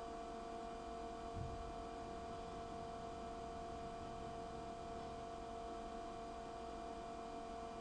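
Steady electrical hum with two steady tones over a faint hiss from an Ameritherm Nova 1 kW induction heating power supply running and heating a Kovar assembly in its copper coil, with a faint low thump about a second and a half in.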